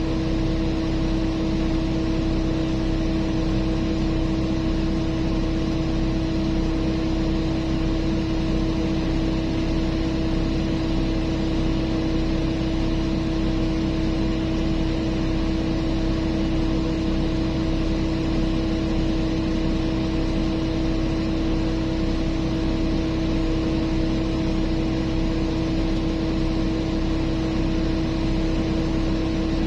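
Heavy mining machinery's diesel engine running at a constant speed: a steady drone with a strong hum that does not change.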